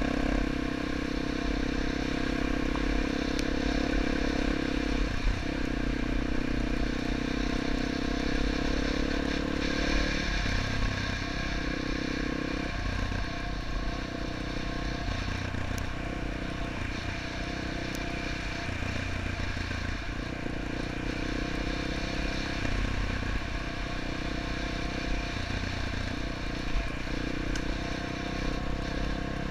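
2009 Yamaha XT250's single-cylinder four-stroke engine running while under way on a dirt road, with wind noise. It holds a steady note for about the first ten seconds, then its pitch shifts up and down with throttle changes.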